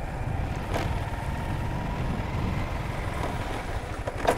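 Motorcycle engine running at low riding speed with a steady low rumble, heard from the rider's own mount. A sharp knock near the end.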